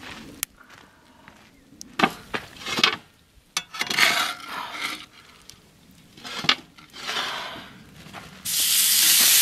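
Scattered rubbing and scraping of cooking gear, then about eight seconds in a sudden loud, steady sizzle as ribeye steak hits hot butter in the pan.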